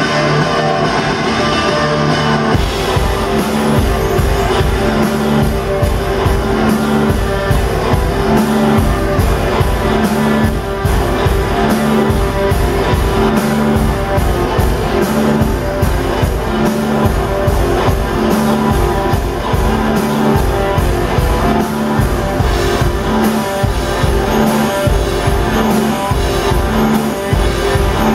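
Rock band playing live: electric guitar alone at first, then drums and bass come in about two and a half seconds in and carry on with a steady beat under the guitars.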